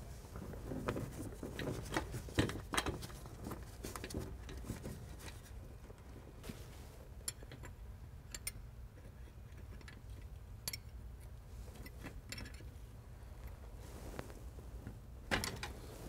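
Scattered small metallic clicks and taps of a wrench on a steel brake hard-line fitting being fitted and tightened at the frame bracket, over a low steady hum.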